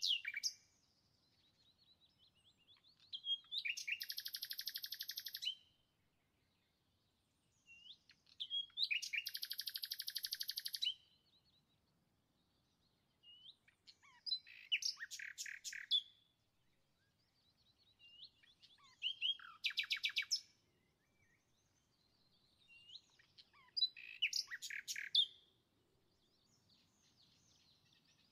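A small songbird singing in separate phrases every few seconds, with near silence between them; two of the phrases are long, fast buzzy trills lasting about two seconds each.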